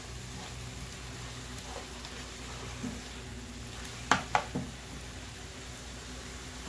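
Shrimp, zucchini and tomatoes sizzling steadily as they fry in butter in a nonstick pan. A slotted spatula stirs them and knocks sharply against the pan twice about four seconds in.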